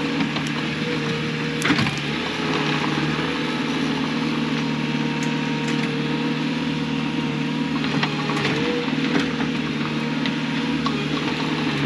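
Diesel engine of heavy digging equipment running steadily while it backfills a trench. The engine note shifts slightly partway through, and there are a few sharp knocks, the loudest about two seconds in.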